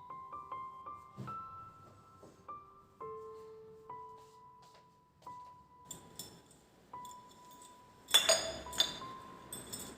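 Soft, slow piano music, with a few sharp clinks of hard objects being handled. The loudest clatter, with a ringing tail, comes about eight seconds in.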